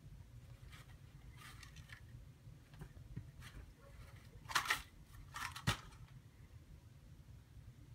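A rabbit rustling and scratching through loose bedding in a plastic tub: a few faint rustles, then two louder bursts a little past halfway, the second ending in a sharp knock.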